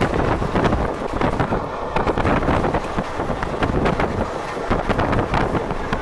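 Wind buffeting the microphone at an open train window, over the running noise of the moving train.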